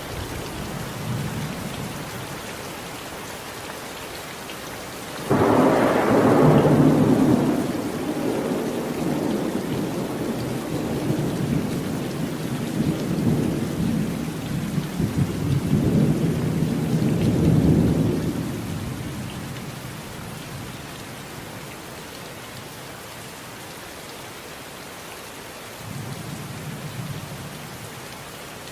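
Steady rain falling, with a sudden thunderclap about five seconds in that rumbles on, swells again, and dies away over some fifteen seconds. A fainter rumble of thunder comes near the end.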